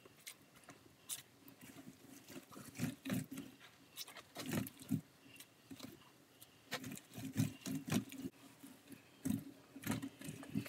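A sponge or cloth being scrubbed by hand across the dirt-caked face of an old sign, in irregular bursts of rough rubbing strokes.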